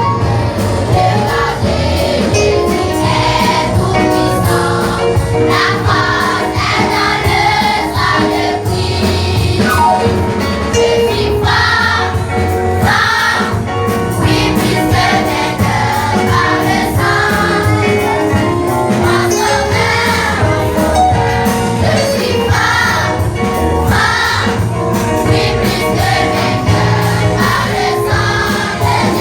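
A choir singing a French-language Christian hymn with instrumental accompaniment and a steady bass.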